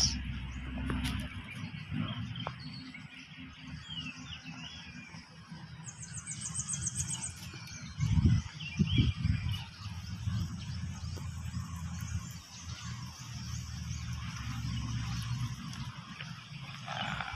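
Outdoor ambience with faint bird chirps and a short, very high, rapid trill, over a low rumble of wind and handling noise on the microphone, with a few dull low thumps about eight seconds in.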